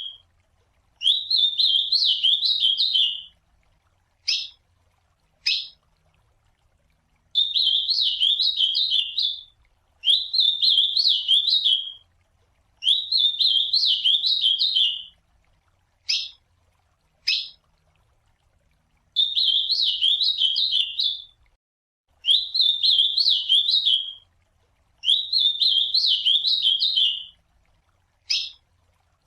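Ultramarine grosbeak (azulão) singing: about seven short warbled song phrases of some two seconds each, repeated every few seconds, with brief single sharp notes in the gaps between some of them.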